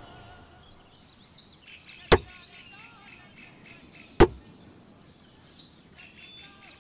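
An axe chopping into a fallen log: two sharp strikes about two seconds apart. Faint bird chirps sound between them.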